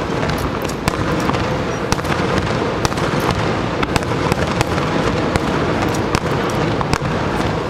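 Fireworks finale: many sharp bangs and cracks, several a second, from aerial shells bursting over a continuous low rumble.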